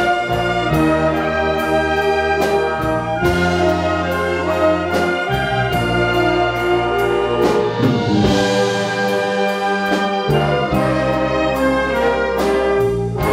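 Concert wind band playing: brass and woodwinds hold full chords over regular percussion hits.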